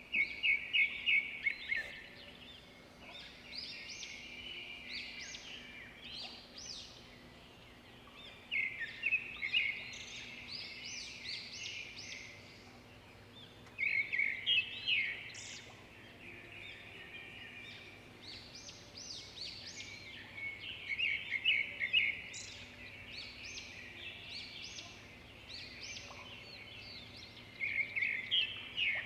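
Forest birds calling: five bursts of rapid chattering notes, about six seconds apart, with softer chirps in between.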